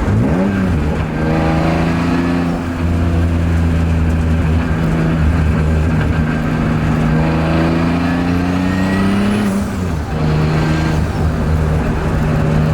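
Turbocharged BMW E36 M3 inline-six engine running under load. Its note climbs slowly for several seconds, then drops sharply about nine and a half seconds in, as at a gear change or throttle lift, and runs steady again.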